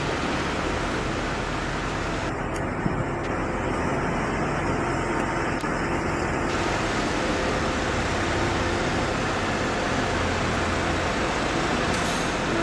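Case IH tractor's diesel engine running steadily as it pulls a two-axle trailer at low speed.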